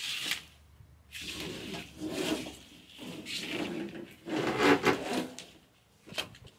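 Electrical wire being dragged through the truck frame as slack is pulled, rubbing and scraping in several long pulls, with a couple of light clicks near the end.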